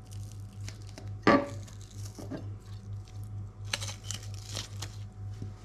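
A kitchen knife cuts a spring onion on a plastic chopping board, striking the board with one sharp knock about a second in. Soft rustling and tearing follow as the onion's outer layer is peeled away, over a steady low hum.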